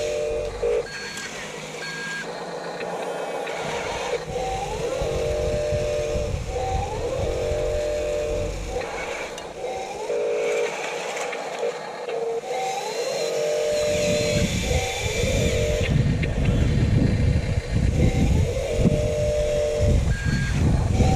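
Small electric motors and gearboxes of radio-controlled construction vehicles whining in short repeated bursts, each starting with a brief rising whine as a motor spins up. A low rumbling noise grows louder about two-thirds of the way in.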